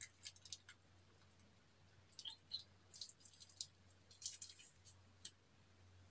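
Faint crinkles and clicks of a plastic piping bag being squeezed and handled, coming in scattered clusters, over a low steady hum.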